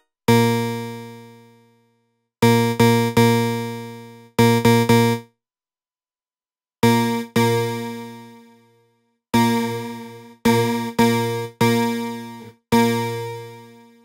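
kHs ONE software synthesizer playing one low note over and over in short bursts, each note starting sharply and fading out, with brief pauses between the groups.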